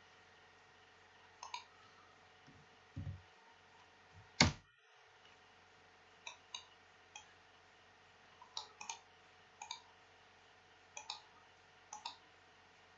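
Quiet, scattered clicks of a computer keyboard and mouse while code is being edited, several in quick pairs. One much louder knock comes about four and a half seconds in.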